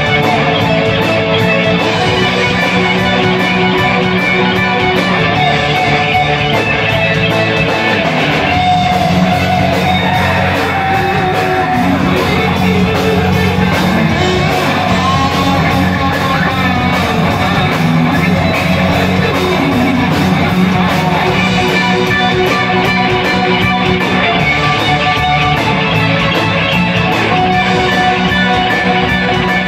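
A live rock band playing loud, with distorted electric guitars over bass and drums. A lead guitar line bends in pitch about eight to twelve seconds in.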